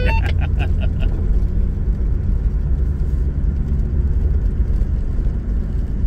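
Four-wheel drive's engine and tyres driving on a gravel road, a steady low rumble heard from inside the cabin.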